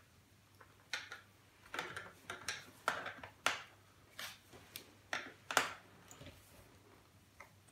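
A screwdriver backing Phillips screws out of a plastic laptop case: a run of irregular clicks and short scrapes lasting about five seconds.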